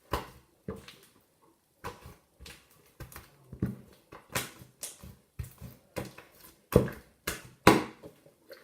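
Sticky slime being kneaded and pulled apart by hand, giving irregular wet squelches and pops, with two louder pops late on.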